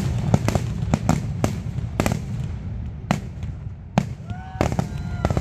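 Aerial fireworks display: repeated sharp bangs from bursting shells, a few each second, over a continuous low rumble.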